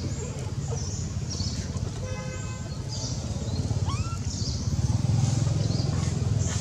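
Low rumble of a motor vehicle running, growing louder in the second half, with a short horn toot about two seconds in.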